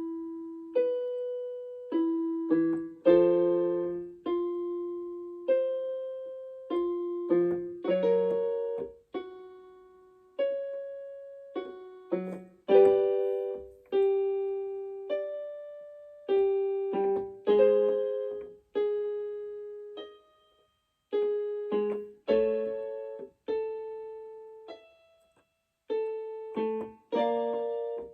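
Piano-voiced keyboard playing single notes and chords, each struck and left to die away, about one every second or so, stepping through the note patterns of a vocal warm-up exercise. Two short pauses come past the middle.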